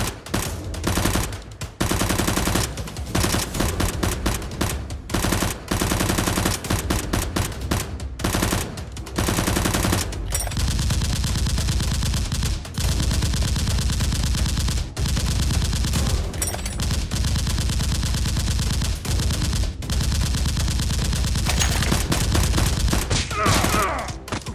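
Bursts of rapid automatic gunfire: short volleys with brief gaps at first, then near-continuous fire from about ten seconds in.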